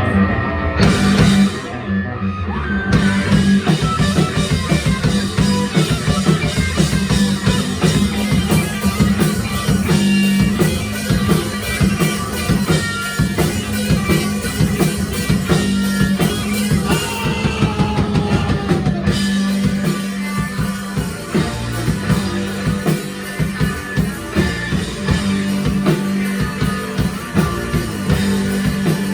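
Live rock band playing a song, with drum kit, electric guitars and bass. The drums enter about a second in.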